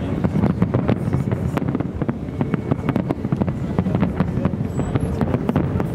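Fireworks display going off in rapid succession: a dense, unbroken stream of bangs and crackles over a low rumble.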